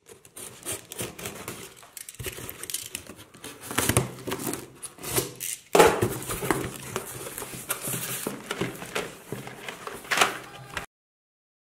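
A cardboard shipping box being opened by hand: packing tape slit and pulled off, cardboard flaps rustling and scraping, and small cardboard boxes of markers knocked and lifted out. Irregular crinkling and scraping, louder from about halfway, cutting off suddenly about a second before the end.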